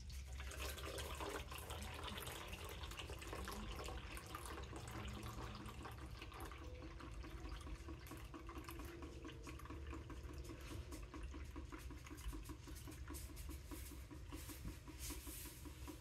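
A thin stream of acid solution poured from a glass beaker into a plastic funnel, faintly trickling and dribbling through a cotton filter into a plastic jug as the solution is decanted off the precipitated gold powder.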